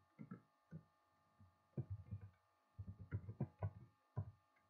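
Computer keyboard keys tapping in short, irregular runs as text is typed.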